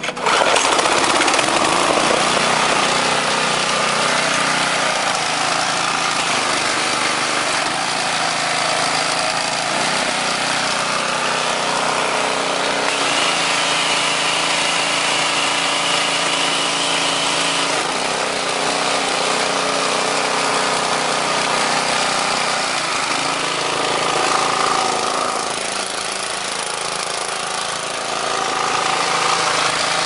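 Briggs & Stratton pressure-washer engine pull-started and running steadily, with knocking from the engine rocking on its loose mounting bolts on the cart.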